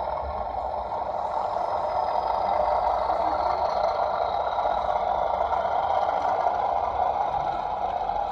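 Class 40 diesel locomotive sound file playing through a model locomotive's small decoder speaker: the English Electric 16-cylinder engine running steadily, with a faint high whistle slowly falling in pitch.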